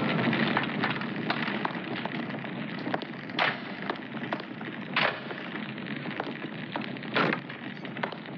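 Fire crackling steadily with many small pops. Three louder sharp cracks come about three and a half, five and seven seconds in.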